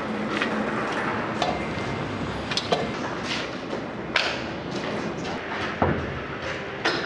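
Building-site work noise: a steady rumble with scattered sharp knocks and clatter, from wooden logs being handled and moved on a hand pallet truck over concrete.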